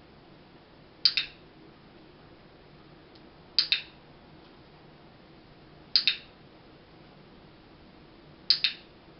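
Dog-training clicker pressed four times, about every two and a half seconds, each press a sharp double click-clack. The clicks mark the dog's paw movements on the towel during shaping.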